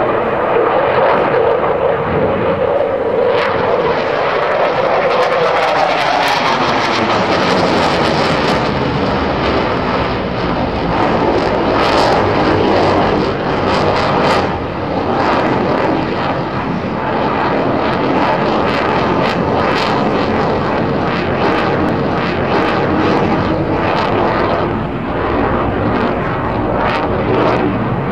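Dassault Rafale's twin Snecma M88 jet engines, a loud continuous roar as the fighter manoeuvres overhead, with a tone that falls in pitch about five seconds in and scattered sharp crackles throughout.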